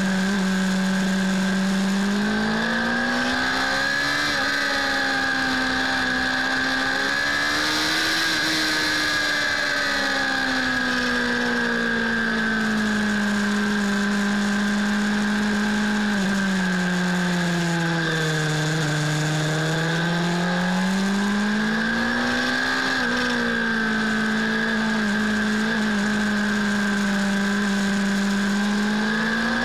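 Suzuki Bandit S 600's inline-four engine under way on track, its pitch rising and falling as the rider accelerates and eases off through the corners. The revs climb to a peak about eight seconds in, sink lowest a little before twenty seconds and climb again soon after. A steady high whine and a rush of wind noise run alongside it.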